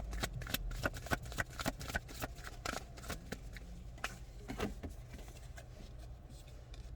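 Tarot cards being shuffled by hand: a rapid run of sharp card flicks and riffles that thins out about four seconds in, ending in a few scattered soft taps.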